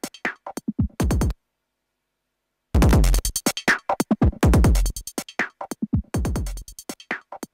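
Electronic drum-machine beat with deep kick drums that drop in pitch and crisp hi-hat ticks. It cuts out completely for about a second and a half near the start, then comes back in full.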